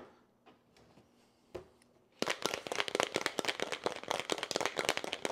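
Stainless steel cobbler cocktail shaker being shaken hard with a single ice sphere inside: fast, dense rattling and knocking that starts about two seconds in. Before that, a couple of single knocks as the shaker is handled.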